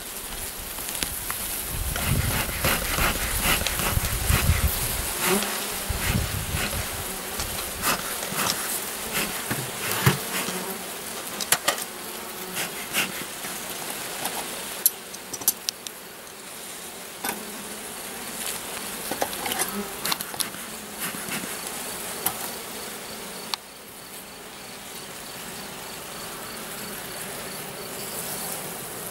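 Honeybees buzzing steadily over an open hive, with scattered clicks and knocks of the wooden frames being handled.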